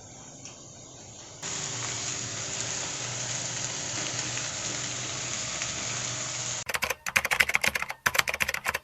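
Kitchen water running in a steady rush that starts suddenly about a second and a half in, with a low hum under it. Near the end it gives way to a loud burst of rapid, irregular clattering and crackling.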